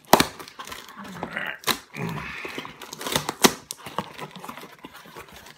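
Cardboard shipping box being opened by hand: several sharp snaps and scrapes as the packing tape is cut and the flaps are pulled, with a short rasping rip about two seconds in.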